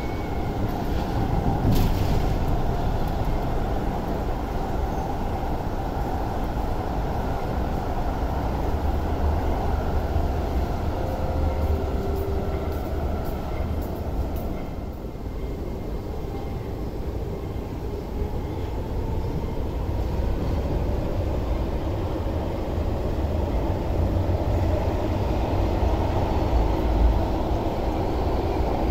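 Electric metro train running on the underground track behind platform screen doors: a continuous low rumble that eases off midway, then grows louder again over the last several seconds as a train comes into the platform.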